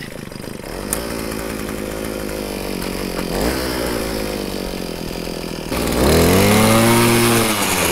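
Gas-powered ice auger engine running as it bores a hole through pond ice. It holds a steady pitch at first, then about six seconds in it gets louder and the revs climb, before easing off near the end.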